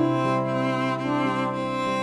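Slow background music on bowed strings, long held notes forming a chord over a steady low bass note, with a new chord starting at the very beginning.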